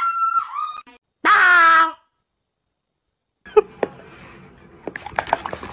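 A dog vocalizing in drawn-out, whining, howl-like calls: the end of one call fades out at the start, and one loud call follows about a second in. A little later come quieter scattered clicks and rustling.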